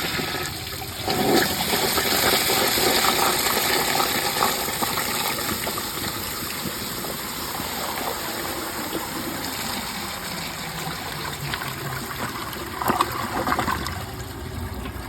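2010s round Vortens Vienna toilet flushing from an overfilled tank, its front-flush rim jets clogged on one side: a strong rush of water for about five seconds that then eases to a steadier running of water, with a short surge near the end.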